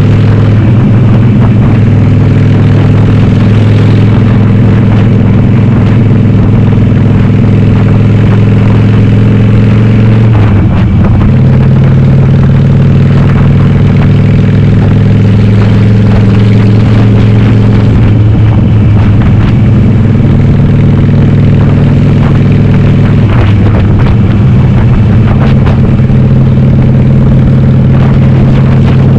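Harley-Davidson Sportster's air-cooled V-twin, bored to 1200, running loud on the move through Cobra Speedster 909 pipes with the dB-killer baffles removed. The engine note shifts in pitch a few times along the way, as the throttle or gear changes.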